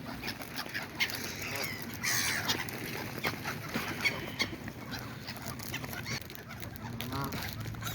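Waterfowl calling at a pond, with repeated short calls and a falling call about two seconds in, and another call near the end.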